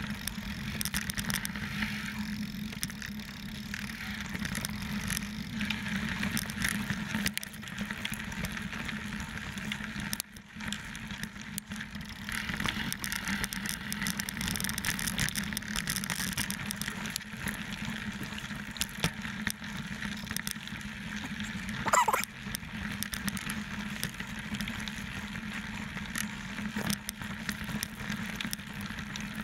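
29er mountain bike rolling over rocky dirt singletrack: continuous crunch of tyres on gravel and stones, with the bike and handlebar-mounted camera rattling over the bumps. A short squeal about two-thirds of the way through.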